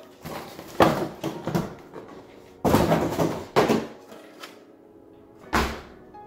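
Cardboard box and packing being handled as a large RC monster truck is lifted out, a run of scraping and knocking sounds, then one heavier thump about five and a half seconds in as the truck is set down on a wooden table.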